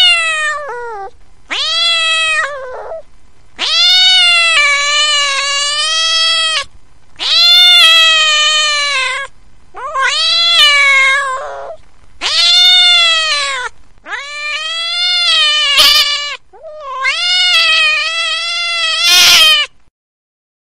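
A kitten meowing over and over: about eight long, loud meows with short gaps between them, each rising and then falling in pitch.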